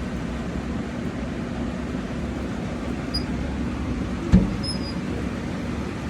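Keystone Koker coal stoker furnace running, its fan giving a steady hum. A single thump about four seconds in.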